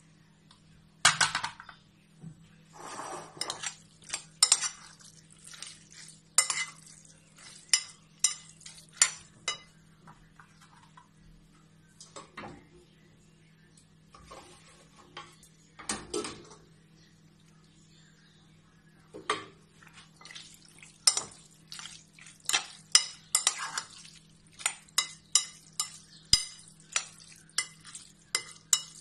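A spoon stirring sauced ditalini pasta in a glass bowl, clinking and scraping against the glass in irregular clusters of sharp clicks. There is a quieter pause about two-thirds of the way through, then a busy run of clinks.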